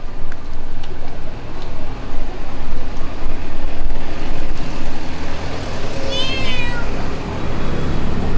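A single meow about six seconds in, its pitch rising and then falling, over a steady low rumble.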